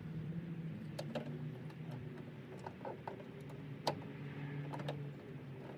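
Scattered sharp clicks and taps of screws being started by hand to fit a plastic speaker adapter bracket into a car door, over a steady low hum.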